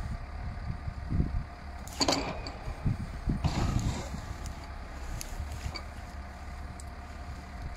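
Valtra 8550 tractor's diesel engine running steadily at a distance, with a faint steady whine, as it powers the loader crane over cut branches. Two brief bursts of crackling rustle, about two and three and a half seconds in.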